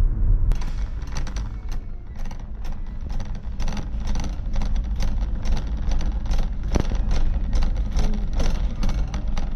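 Low rumble of road and engine noise inside a moving car, with background music carrying a quick percussive beat over it.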